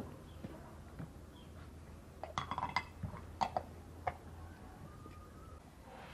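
Light clinks of a teaspoon against small glassware, a tea glass and a little glass dish of jam: a quick cluster of clinks about two seconds in, then a few single ones.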